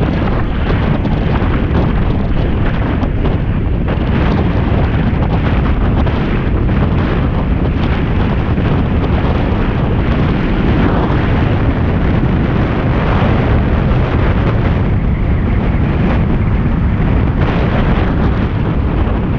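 Wind rushing over the microphone of a camera on a moving car, a steady loud rumble with road and engine noise underneath.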